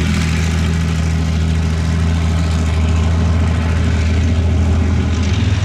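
Soviet BMP-1 tracked infantry fighting vehicle driving past at speed, its UTD-20 V6 diesel running loud and steady over the noise of the tracks. The engine note steps slightly higher near the end.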